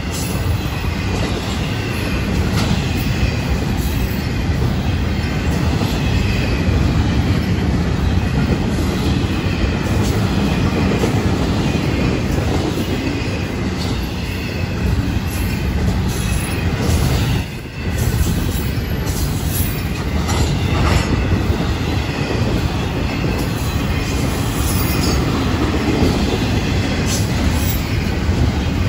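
Freight train's double-stack intermodal well cars rolling past close by: a steady rumble of steel wheels on rail, with a faint high wheel squeal and scattered clicks.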